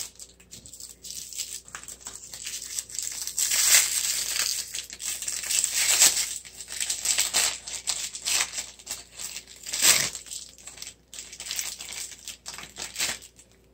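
Plastic wrapping crinkling and tearing as a toy blind bag is unwrapped by hand, with louder crackles about 4, 6 and 10 seconds in.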